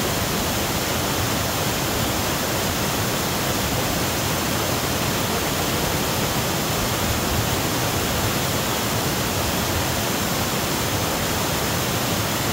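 Waterfall cascading over boulders: a steady rush of whitewater with no breaks.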